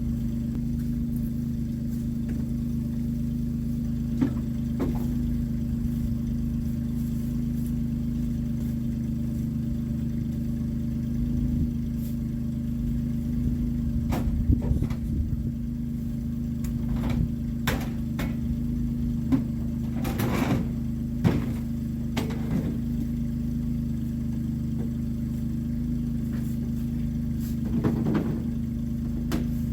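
An engine running at a steady speed, with scattered knocks and rattles over it.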